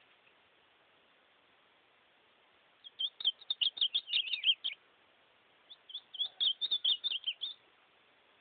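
Ultramarine grosbeak (azulão) singing two song phrases of quick, sliding high notes, each about two seconds long, the second starting about a second after the first ends.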